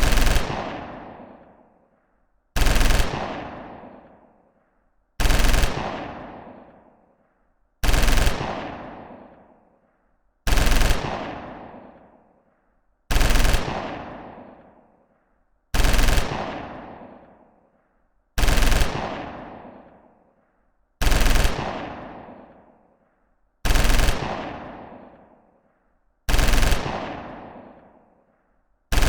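Machine gun sound effect: short bursts of automatic fire, each trailing off in a long echo. The same burst repeats about every two and a half seconds, about a dozen times.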